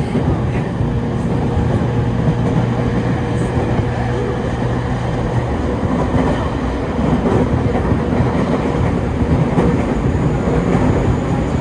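Electric commuter train running on the rails, a steady rumble with some wheel clatter and a low hum that drops out about halfway through.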